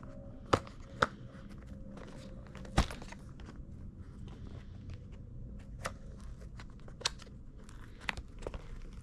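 Hands working at stiff product packaging, trying to pry it open: scattered sharp clicks and knocks with faint crinkling. The package resists being opened by hand.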